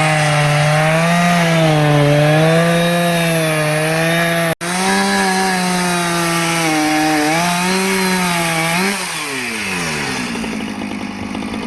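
Two-stroke chainsaw running at full throttle, its pitch bobbing up and down as it works through wood, with a momentary break about four and a half seconds in. Near the end the throttle is released and the engine winds down to idle.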